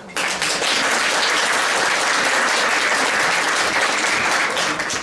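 Audience applauding, with one person's hands clapping close to the microphone; it starts suddenly, holds steady and dies away near the end.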